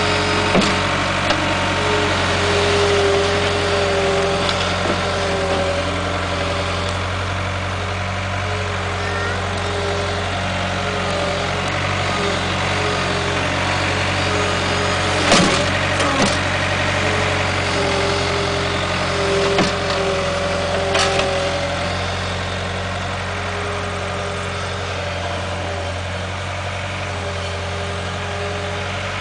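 Cat skid steer loader's diesel engine running steadily, with a whine coming and going above the low hum and a few sharp knocks, the loudest about halfway through.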